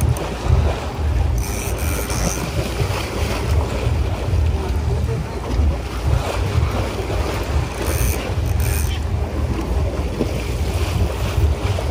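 Wind buffeting the microphone on a fishing boat at sea, over a steady low rumble and the wash of waves against the hull. Brief high hissing bursts come about two seconds in and again about eight seconds in.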